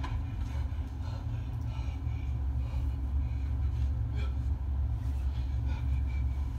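Low, steady rumbling drone of a thriller's ambient soundtrack, heard as played back from a computer, with faint thin high tones drifting above it now and then.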